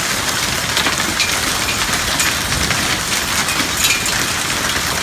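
Breaded chicken pieces deep-frying in oil at 375 degrees: a steady sizzle with small crackles and pops.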